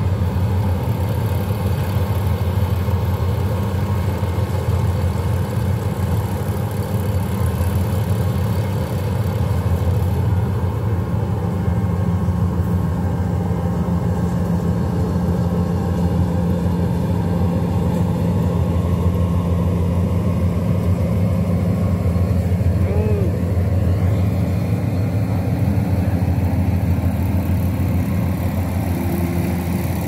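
Diesel engine of a tracked rice combine harvester running steadily while it cuts and threshes rice, a constant low drone.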